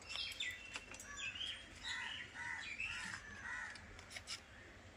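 A bird calling, a run of about six short, arched calls repeated quickly near the middle, over a low background with a few faint clicks.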